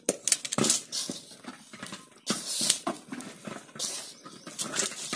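Hand mixing chopped vegetables into rice flour in a steel bowl: an irregular rustling and crunching of the vegetables and flour, with light scrapes against the bowl.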